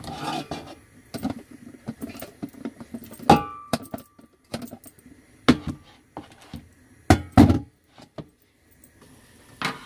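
Lidded saucepan of drained boiled potatoes being shaken to roughen them for roasting: a string of separate knocks and clatters from the potatoes and the glass lid, one of them ringing briefly about three seconds in.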